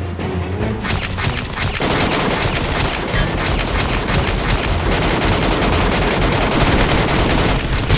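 Rapid automatic gunfire sound effects, dense bursts of shots starting about a second in and running on: movie-style gunshots dubbed over toy blasters, not the blasters' own sound.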